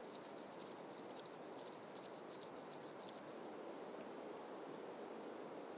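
Meadow insects chirping: sharp high chirps repeat about two or three times a second for the first three seconds, then settle into a faint, steady high trill.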